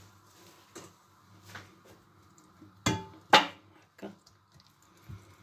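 Metal couscoussier steamer basket being handled, clanking sharply twice about three seconds in, the second clank the loudest with a short ring, then a couple of lighter knocks.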